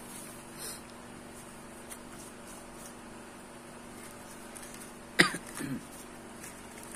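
Quiet small room with a steady low hum and faint handling of a plastic-wrapped package. About five seconds in, a person gives one short cough.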